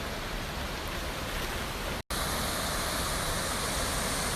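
Steady rushing noise, broken by an abrupt cut about two seconds in, after which a similar, slightly brighter rush continues.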